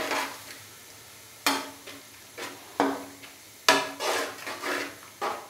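Long metal spoon scraping and clanking against an aluminium karahi as a thick onion-tomato masala is stirred and fried down (bhuna), in a run of irregular strokes about half a second to a second apart, over a low sizzle.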